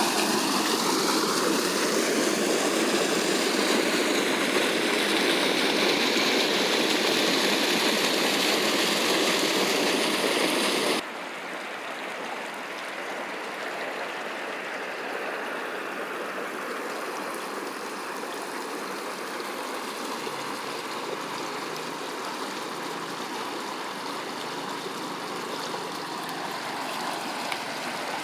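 Steady rush of flowing water. It is loud for about the first eleven seconds, then cuts abruptly to a quieter rush.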